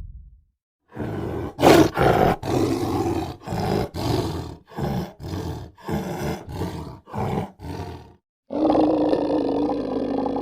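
Creature sound effects for a fictional movie monster: a rapid run of about a dozen short growling bursts, then a long pitched roar starting about eight and a half seconds in.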